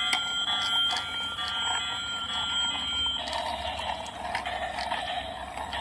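Battery-powered toy trains running: a steady high electronic tone for about the first three seconds, cutting off suddenly, then the whir and rattle of a small toy motor and plastic wheels.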